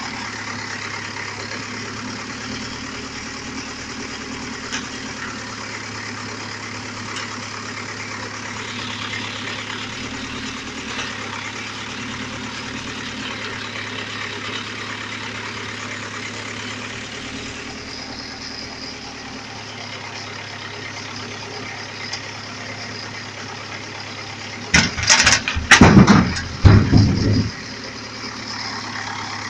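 Zetor 7745 tractor's four-cylinder diesel engine running steadily while it powers a forestry trailer's hydraulic log crane. About 25 seconds in, a cluster of loud knocks and rumbles lasts about two and a half seconds.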